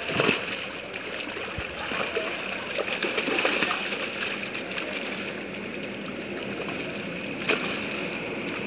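Water splashing and sloshing as large cachama thrash in a seine net in shallow pond water, loudest just after the start and again about three seconds in, with one sharp knock near the end.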